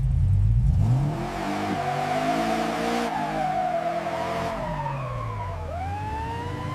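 A car engine revving up and then running hard, with high squealing tones that dip and rise in the second half, like tyres squealing through turns.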